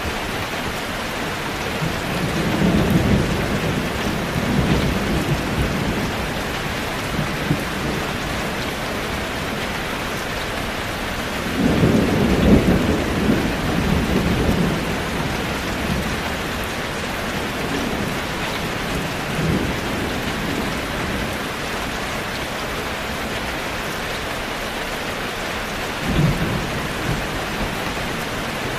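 Steady heavy rain falling on a zinc roof, an even hiss, with low rolls of thunder: one about two seconds in, the loudest about twelve seconds in, and shorter rumbles later on.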